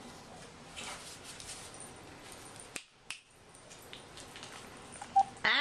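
A dog gives a short, loud bark or yelp near the end, after faint clicks and scuffles of dogs at play on a hard floor.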